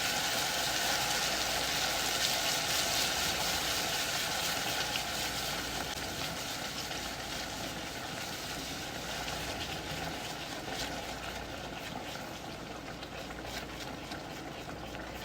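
Hot caramel in a saucepan sizzling and bubbling just after canned cream has been added to it for toffee sauce, a steady crackling hiss that slowly dies down.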